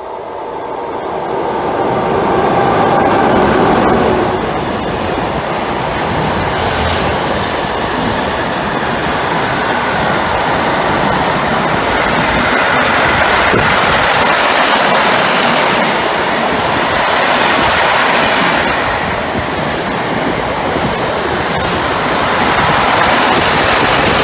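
A train passing through a station at speed: the sound swells quickly over the first two seconds, then steady, loud wheel-on-rail noise carries on, with a few sharp clicks over rail joints.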